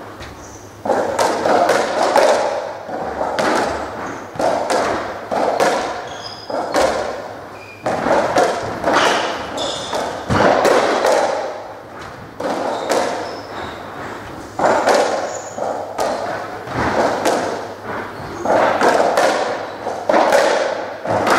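A racketball rally on a squash court: the ball is struck by rackets and smacks off the walls in an irregular run of hits, each one echoing in the enclosed court. The rally begins about a second in.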